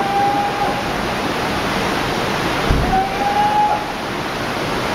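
Tsunami floodwater rushing and churning over the ground in a steady, heavy roar of moving water. A faint, slightly rising wail comes through twice, near the start and about three seconds in.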